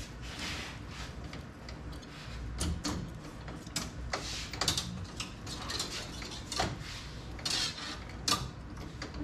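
Stainless steel brake line being drawn through a hand tubing straightener, giving irregular metallic scrapes and sharp clicks as the line is worked straight.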